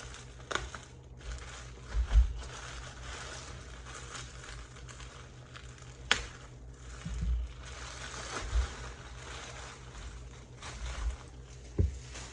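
Plastic bubble wrap crinkling as hands pull it open around a box. A few dull thumps and a couple of sharp clicks come from the box being handled.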